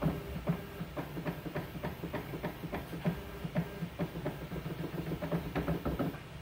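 Vivicon fundus camera running its automatic alignment and focus sequence: a steady motor hum with a rapid series of clicks, about three a second, that stops near the end.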